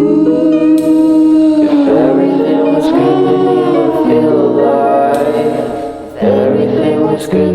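Background music: sustained, choir-like sung vocal harmonies held as long chords, with no clear words.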